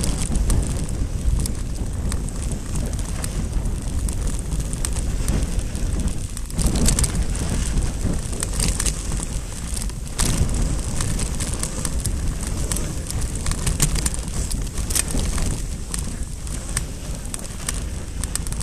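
Wind buffeting the microphone of a handlebar-mounted camera on a mountain bike speeding down a dirt trail, with steady tyre noise and frequent rattling clicks from the bike over the bumps.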